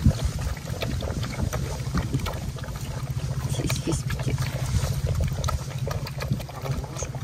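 A litter of puppies lapping and slurping milk from one shared bowl: many fast, overlapping wet laps and gulps, a noise likened to a water pump.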